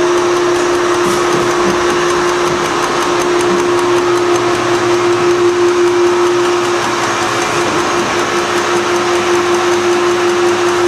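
Gnutti rotary transfer machine running with its hydraulic power unit on: a steady mechanical hum with one constant, unchanging tone.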